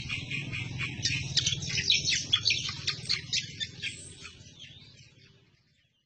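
Greater green leafbird (cucak kombo) singing a fast, unbroken chattering song of rapid high notes, fading out near the end.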